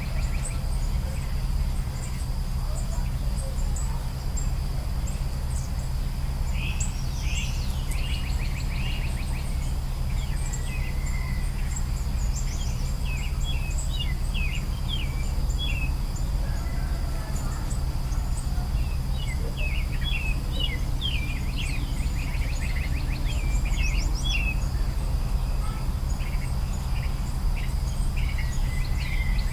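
Many small songbirds chirping and trilling in quick, high calls that come in bursts, over a steady low rumble and a faint steady high hum.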